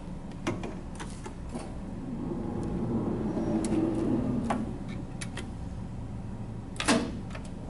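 An X-ray tube being moved back from its 40-degree angle to straight. There are a few sharp clicks, a low hum that swells and fades in the middle as the tube moves, and a louder clack about seven seconds in.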